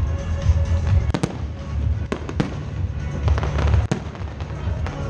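Festival fireworks bursting overhead: several sharp bangs, some in quick pairs, over a steady low rumble.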